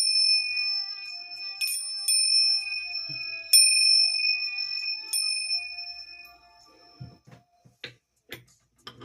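Bell-like chime struck about five times, each strike leaving bright high ringing tones that fade out. A few soft clicks and taps follow near the end.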